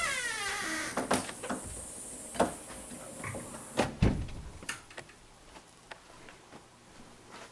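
A falling wail fades out within the first second. Then come a few knocks and clicks, the loudest about four seconds in, after which it goes quiet.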